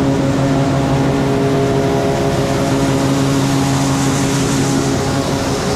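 Tractor engine running at a steady speed, pulling a load of harvested corn.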